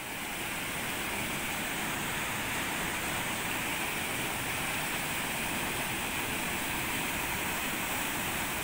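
Water rushing steadily through a stone-walled sluice channel below a gate, an even, unbroken noise.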